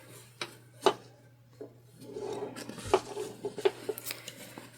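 Fabric rustling as the lining is handled and its edges matched, with a series of sharp clicks, mostly in the second half, as sewing clips are put onto the edges.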